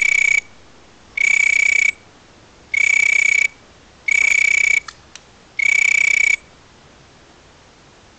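An insect's whistling call: five steady high-pitched notes, each under a second long, repeating about every one and a half seconds. The calls stop after about six seconds.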